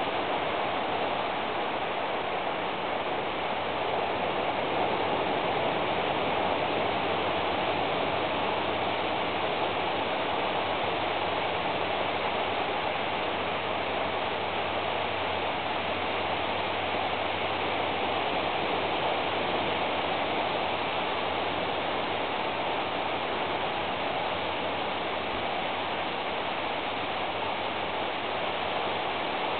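A steady, even rushing noise with a faint low hum underneath.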